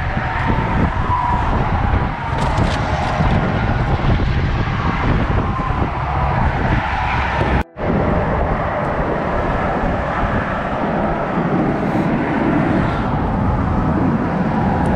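Steady wind rumbling on the camera's microphone outdoors over open water, a continuous loud rushing noise; it drops out for a split second about halfway through.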